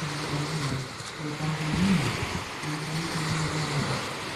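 Small waves washing onto a beach, with steady wind noise, under a low, muffled, voice-like hum that holds and bends in pitch.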